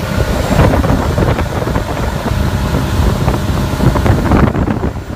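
Wind buffeting the microphone over the run of a 2004 Four Winns 268 cruiser under way at about 30 mph, its engine and hull rushing through the water.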